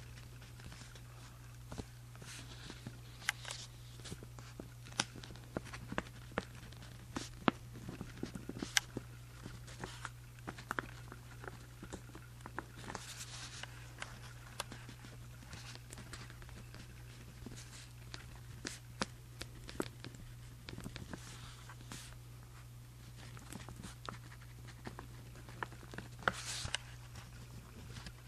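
Writing by hand on journal paper: irregular scratching strokes and small ticks of the writing tip, with a few longer swishes, over a steady low hum.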